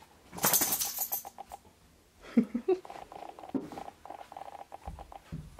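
A large black dog playing with a chew toy: quick pattering and scuffling, with a loud rustling burst about half a second in.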